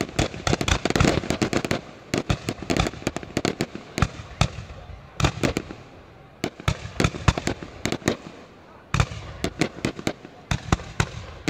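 Aerial fireworks going off: many sharp bangs with crackling, a dense volley in the first two seconds that thins out, then another run of bangs from about nine seconds in.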